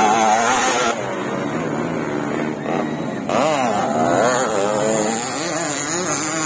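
Motocross dirt bike engines revving up and down as the bikes ride the track. The engine pitch rises and falls repeatedly, with a dip about a second in and a fresh burst of revving just past three seconds.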